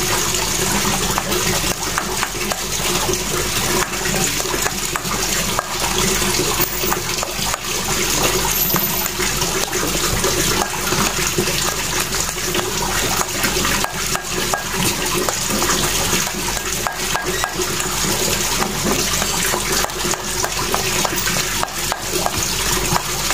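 White plastic scoop stirring and scraping a soft carp-bait dough round a stainless steel bowl, over a steady rushing noise.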